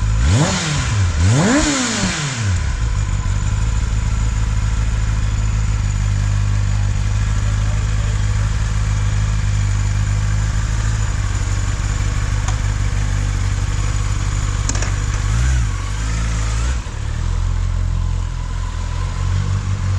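Kawasaki ZX-10R's inline-four through its stock exhaust, warmed up after a cold start: two quick throttle blips right at the start, then a steady idle, with one short blip about fifteen seconds in.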